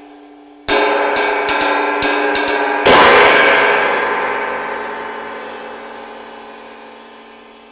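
A 22-inch stainless steel cymbal fitted with three removable aluminum rivets (Chicago screws) is struck. A hit comes just under a second in, then a quick run of lighter strokes, then a hard crash near three seconds that rings on and slowly dies away.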